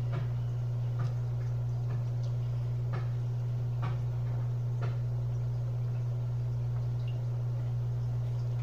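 A steady low hum with faint, evenly spaced clicks about once a second, like a clock ticking.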